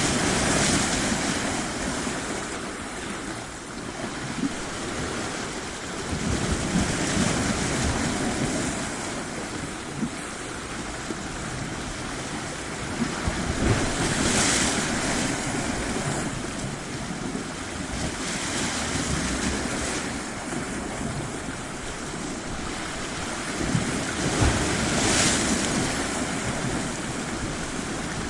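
Ocean surf breaking on a shore, an even wash of water noise that swells with each wave roughly every six seconds.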